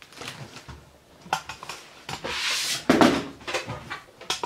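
Handling noise from things being knocked and moved about: a string of small knocks and clicks, with a short rustling swish about two and a half seconds in.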